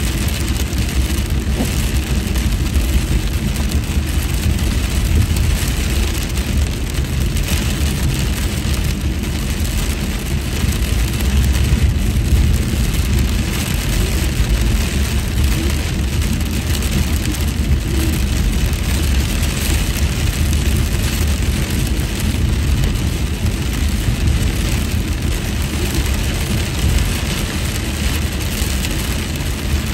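Steady road noise inside a moving car on a wet freeway: a low rumble of engine and tyres under an even hiss of rain and tyre spray.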